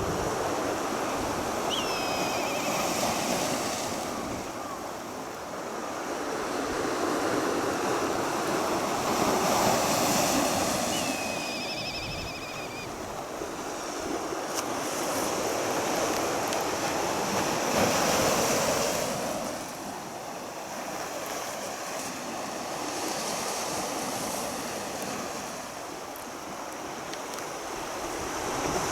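Sea waves washing onto the shore, swelling and easing about every eight seconds, with wind buffeting the microphone. A few short, high whistling calls come over it, once near the start, once partway through and once at the end.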